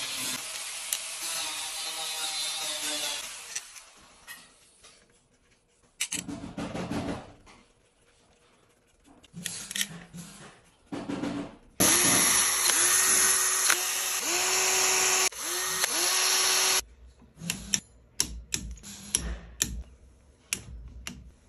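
A cordless drill-driver runs in several bursts, the longest about five seconds in the middle, tightening bolts on the engine. A run of sharp clicks and knocks comes near the end.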